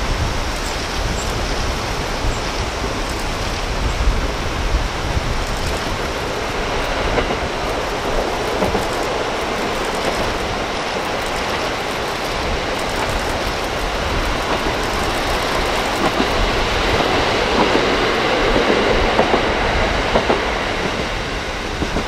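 Diesel train running past along the track, its wheels clattering on the rails.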